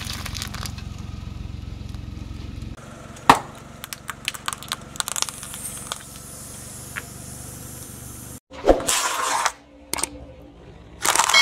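Car tyre crushing small objects on pavement: a low rumble, then, after a cut, one loud crack followed by a quick run of sharp snaps and clicks, and a short burst of noise later on.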